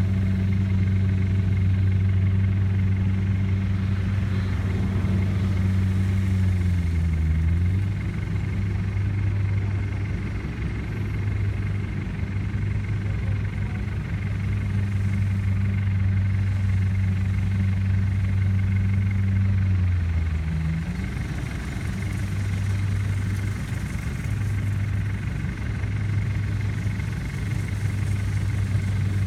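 Kubota DC70 combine harvester's diesel engine running steadily under harvesting load. Its low note sags and dips twice, about a quarter of the way in and again about two-thirds in, then carries on a little uneven.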